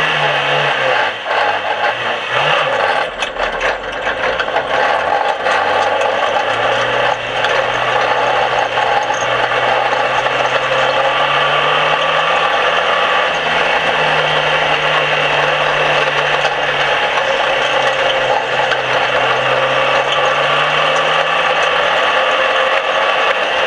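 Dirt-track race car's engine running under power, heard from inside the cockpit over a loud, continuous rattle of the car's body. The engine note drops briefly a couple of seconds in, then holds steady, and sharp clicks and knocks come through in the first several seconds.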